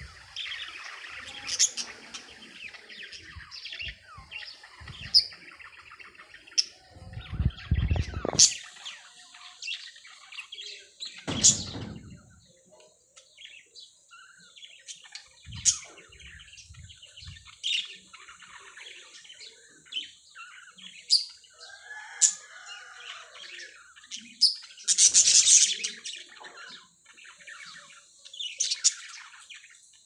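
Budgerigars chirping and chattering: many short, sharp high chirps over a continuous warbling, with a louder burst of chatter late on. Two low thumps come in the first half.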